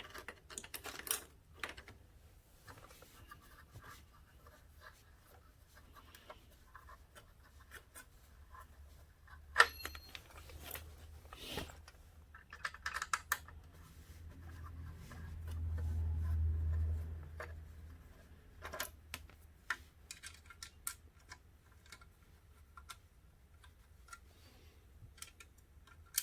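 Scattered small clicks, scrapes and light rattles of hands and tools working plastic motorcycle fairing panels and their fasteners loose, with one sharper click about ten seconds in. A low rumble swells and fades around the middle.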